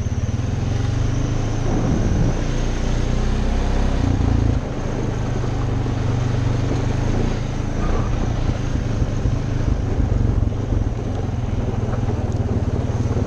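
Honda utility ATV's single-cylinder four-stroke engine running steadily as it is ridden, easing off a little about four and a half seconds in.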